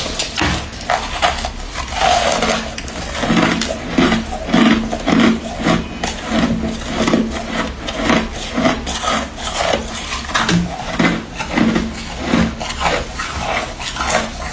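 Close-miked chewing of freezer frost, a steady rhythm of wet crunches somewhat under two a second.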